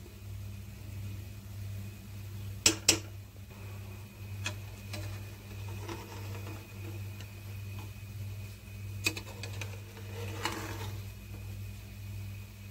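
Spatula scraping and clinking against an aluminium pressure cooker as cooked biryani rice is mixed, with two sharp clicks about two and a half seconds in and a few more later, over a steady low hum.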